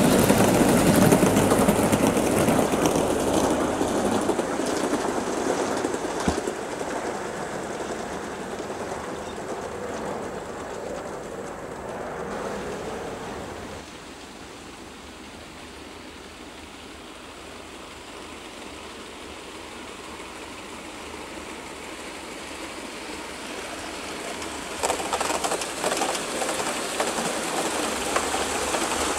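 Model train running on a garden railway: the wheels rumble and clatter along the track, loud as it passes close at the start and fading away over the first dozen seconds. It grows louder again about 25 seconds in as the train passes close by once more.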